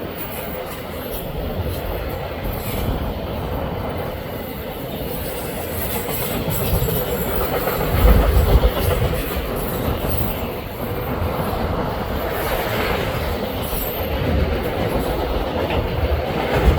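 Freight cars of a Canadian National double-stack and auto-rack train rolling past, wheels clacking over the rail joints with a steady rumble and a faint sustained wheel squeal. The rumble swells about halfway through and again near the end.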